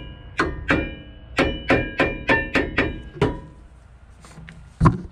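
Brake pad hardware clips being knocked into place on a caliper bracket: about nine sharp metal taps in quick succession, each leaving a short metallic ring, then one more tap near the end.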